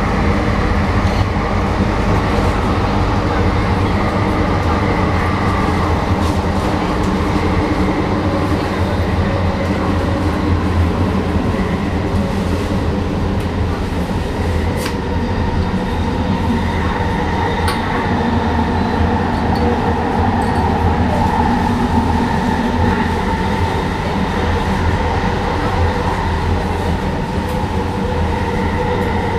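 SkyTrain car running at speed along its guideway, heard from inside the car. It makes a steady rumble with a low hum and a high whine laid over it. The train is driven by linear induction motors.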